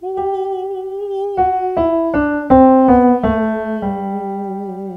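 Man singing a descending G major scale over electric piano as a vocal exercise, in a light, easy voice. The top note is held, then the scale steps quickly down note by note to a held low note an octave below.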